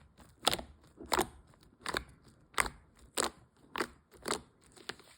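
A regular series of about eight short, crisp crunching clicks, one roughly every half second.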